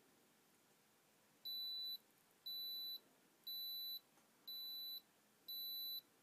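Digital stick thermometer beeping five times, short high-pitched beeps about one a second, the signal that the reading is finished.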